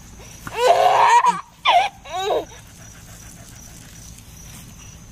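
A dog yelping and a toddler squealing with laughter in two short bursts in the first couple of seconds, as the dog plays at the water from a garden hose; then only a low steady background.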